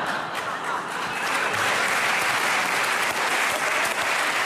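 Studio audience applauding, a dense clatter of many hands that dips briefly about a second in, then swells again and keeps going.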